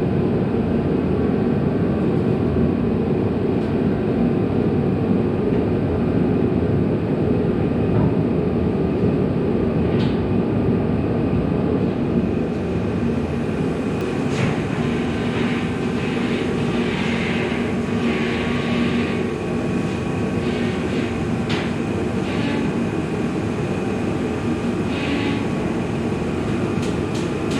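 Steady low mechanical rumble, with a few faint clicks and scrapes about halfway through.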